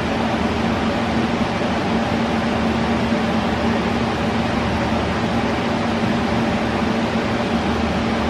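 Steady fan-like whir with a constant low hum, unchanging throughout.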